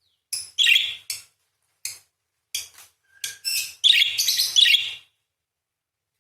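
Parakeet giving sharp, screeching chatter in a run of short chirping bursts, building to one longer burst of chatter about four seconds in. It stops about a second before the end.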